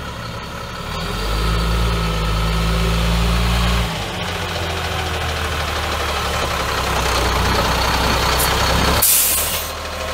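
Caterpillar C7 inline-six turbo diesel of a 2004 Peterbilt 330 truck idling steadily, louder and deeper from about one second in until it steps down near four seconds. A short hiss of air cuts across the engine sound near the end.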